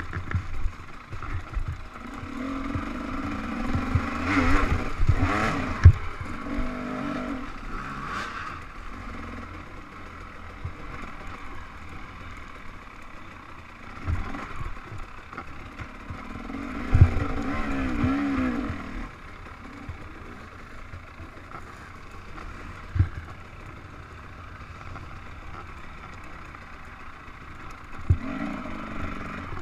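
Off-road dirt bike engine riding a rough trail, revved in surges as the throttle is opened, twice for several seconds and briefly near the end, with lower steady running between. Sharp knocks from the bike striking bumps and roots cut through, the loudest about six seconds in and again around seventeen seconds.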